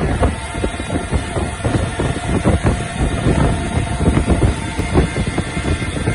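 CNC lathe running, with its spindle spinning the chuck and coolant spraying: a steady mechanical hum under dense, irregular clattering.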